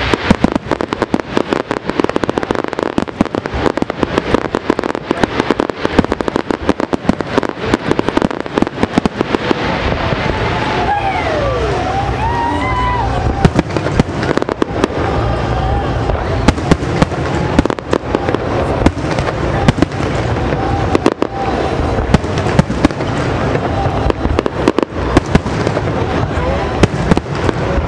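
Aerial fireworks shells bursting in rapid succession, a dense run of booms and crackles with no let-up.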